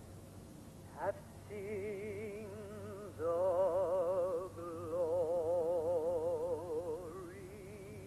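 A solo voice singing slow, long-held notes with a wide, even vibrato, in an operatic style, with a quick upward swoop about a second in.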